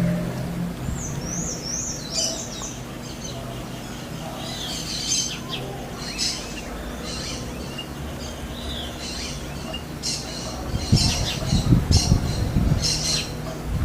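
Birds calling: a run of short, high chirps repeated throughout, with a wavering whistled call about a second in. Low rumbling comes in near the end.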